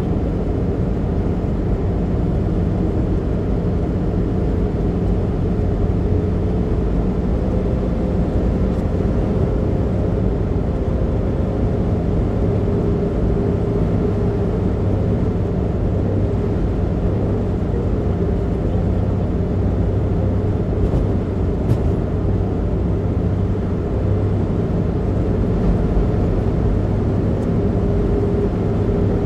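Car cruising at expressway speed, heard from inside the cabin: a steady drone of tyre and engine noise, with a faint steady whine over it.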